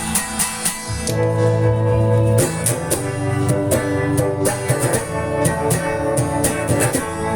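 Guitar music with a steady beat, no singing: an instrumental stretch of the song.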